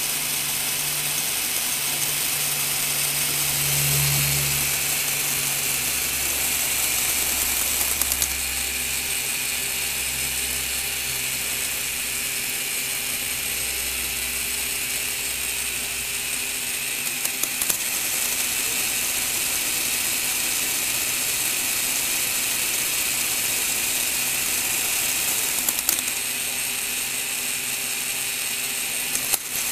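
Lego Technic gearbox driven by a Power Functions electric motor, running with a steady whir and gear chatter. Short clicks about eight seconds in, around seventeen seconds, around twenty-six seconds and near the end come as the gears are shifted by hand, and the running note changes after each shift.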